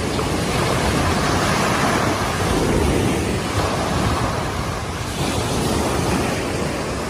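Sea waves washing onto a sandy beach, a steady rush that swells and eases.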